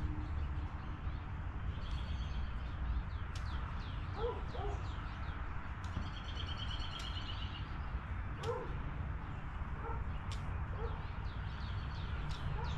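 Songbirds chirping repeatedly in short falling notes, with a fast trill about six seconds in, over a steady low background rumble.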